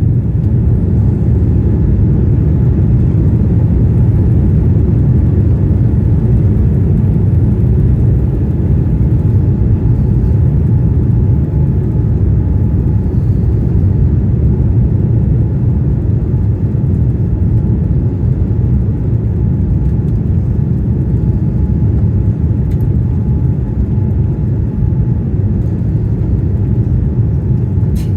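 Steady low rumble inside a Boeing 787-9 airliner cabin: engine and airflow noise heard from a passenger seat, unchanging throughout.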